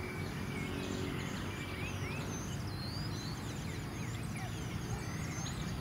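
Birds chirping and calling, many short rising and falling notes, over a steady low outdoor rumble.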